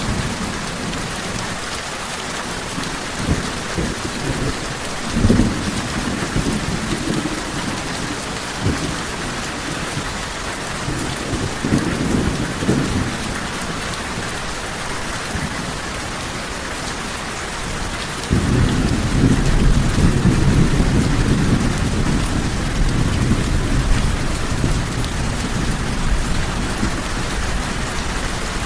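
Steady rain falling, with thunder rumbling: short rolls about five and twelve seconds in, then a longer, louder roll starting about eighteen seconds in.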